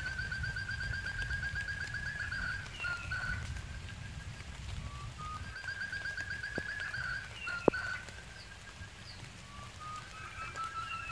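Quail's rapid pulsed trilling call, each trill held for a couple of seconds and given three times, over a steady low rumble. A single sharp click comes shortly after the second trill.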